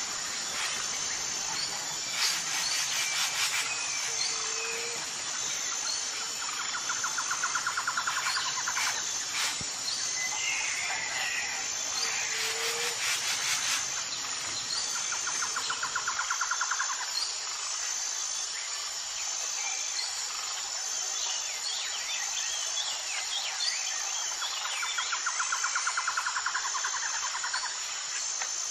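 Nature ambience: a steady high insect drone with scattered bird chirps, and a rapid pulsing trill that returns every several seconds.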